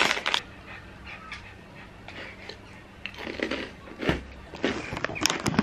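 Someone eating a chili rice cracker dipped in hummus, with a run of short, crisp crunches from about three seconds in.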